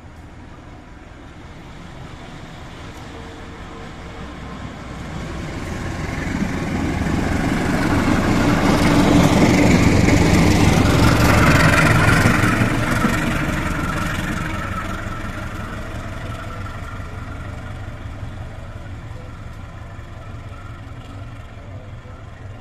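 GE-built CC 203 diesel-electric locomotive running light, with no wagons, as it approaches and passes close by. The engine and wheel noise swell over several seconds, peak about ten seconds in, then slowly die away as it recedes.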